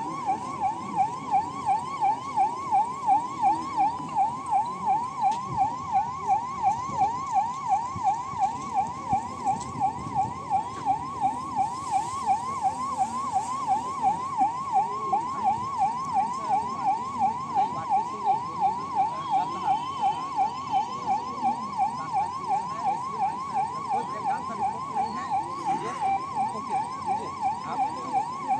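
Electronic siren sounding a fast yelp, its pitch sweeping up and down about two and a half times a second without a break.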